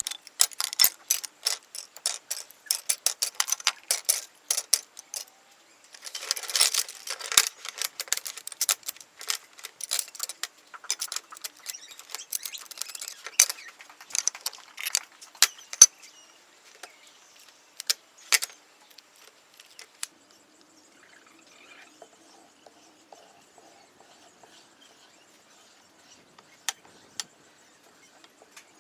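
A run of sharp clicks and clacks from small hard objects being handled and set down on a workbench, dense for about twenty seconds and then thinning out to a few scattered taps.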